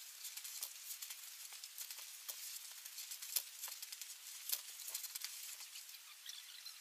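Faint, irregular crunching and scraping of snow shovels cutting into and pushing deep roof snow.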